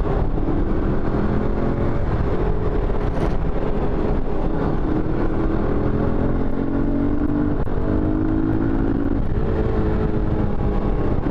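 Yamaha SZ motorcycle's single-cylinder four-stroke engine pulling under way, its pitch climbing steadily in several stretches and dropping back between them. It accelerates smoothly and evenly, without stumbling, on a freshly tuned carburettor. Road and wind noise run underneath.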